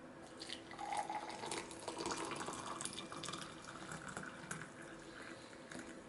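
Water poured in a stream into a tall glass mug onto a tea bag. It starts about half a second in, rises slightly in pitch as the mug fills, and stops just before the end.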